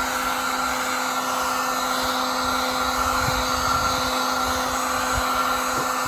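Electric hot-air blower running steadily with a constant motor hum and rushing air, heating a Kydex sheet so it can be moulded.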